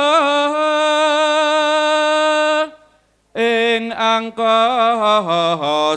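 A singer holding a long, wavering note of a Javanese song. The voice breaks off for about half a second, then sings on with a lower line that slides downward.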